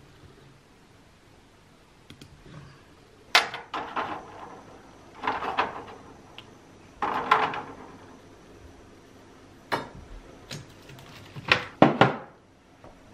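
Knocks and short clatters of someone handling things in an open refrigerator, taking eggs from the door's egg tray and moving containers on its shelves. The knocks start a few seconds in and come in irregular bursts, with a faint steady high tone behind them.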